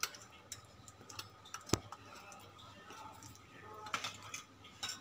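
Light clicks and taps of a steel spoon against a steel bowl as malpuas are pressed down into sugar syrup, with one sharper click about two seconds in.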